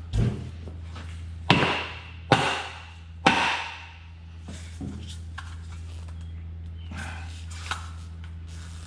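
Four sharp knocks in about three seconds, each with a short ring, as a glued test panel is banged on a metal job box to break the adhesive bond. After that come a few faint handling clicks over a steady low hum.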